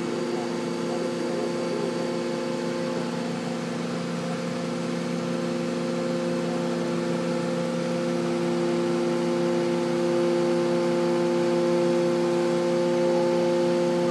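Fire service aerial ladder truck running its engine and hydraulics as the ladder raises its basket: a steady mechanical hum of several fixed pitches that grows a little louder about two thirds of the way through.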